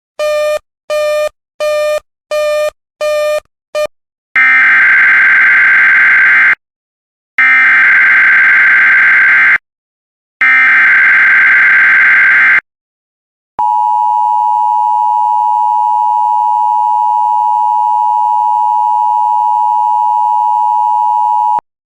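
Emergency Alert System alert header: first a run of short electronic beeps, then three data bursts of about two seconds each, the buzzing SAME header code, then the EAS two-tone attention signal held steady for about eight seconds before it cuts off. This tone sequence announces a Severe Thunderstorm Warning.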